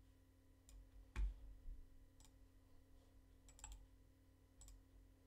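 A few faint, scattered computer mouse and keyboard clicks, with a slightly louder soft knock about a second in.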